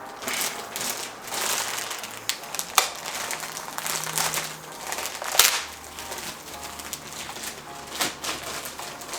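Plastic parts bag crinkling as model-kit parts are handled, with a few sharp clicks of hard plastic pieces knocking together.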